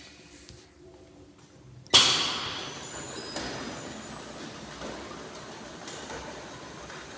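Air jet bottle washing machine starting up: a sudden loud blast of compressed air about two seconds in, settling into a steady hiss with a high, thin whine.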